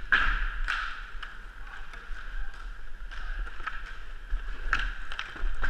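Inline skate wheels rolling on a rink floor, a steady rolling hiss with sharp scraping strides about twice a second near the start and again near the end.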